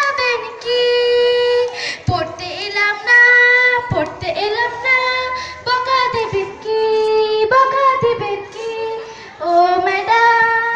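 A young girl singing a Bengali song solo, in phrases of long held notes with short pauses between them.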